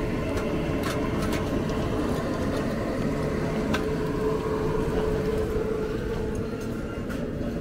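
A steady mechanical running noise: a low rumble with a constant hum and a few faint clicks over it.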